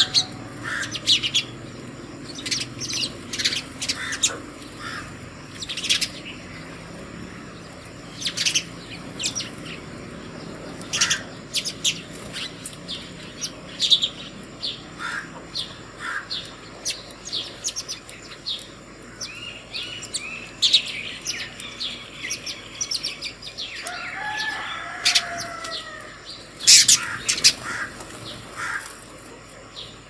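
A flock of house sparrows chirping: many short, sharp chirps in an irregular, overlapping stream, with a few runs of falling chattering notes and the loudest burst of chirps near the end.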